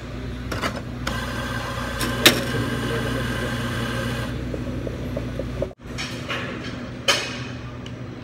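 Steady low hum of café equipment, with light clicks and knocks of bottles and glassware being handled as the espresso bar is cleaned; the sharpest knocks come about two seconds in and about seven seconds in. The sound drops out briefly near six seconds.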